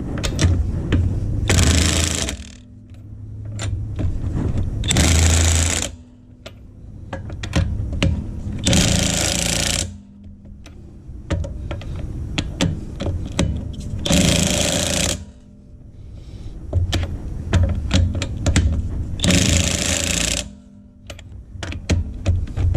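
Impact wrench hammering a wheel's lug nuts tight: five rattling bursts of about a second each, a few seconds apart, with lighter clattering between them.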